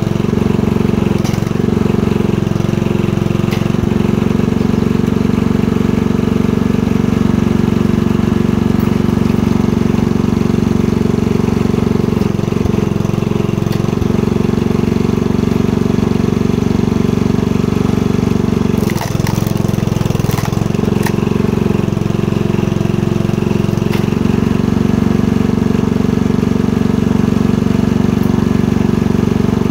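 Honda 10.5 hp engine of a log splitter running steadily, driving the hydraulic pump. Its note changes briefly a few times as the rams work. A few sharp knocks and cracks come about two-thirds of the way through.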